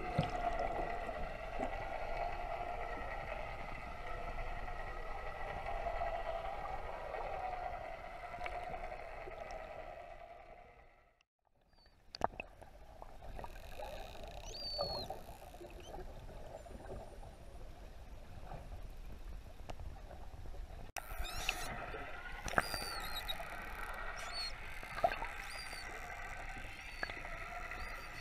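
Underwater sound. A steady hum fades out about a third of the way in. After a moment of silence come scattered sharp clicks and a few short, high, rising whistles from Indo-Pacific humpback (Chinese white) dolphins.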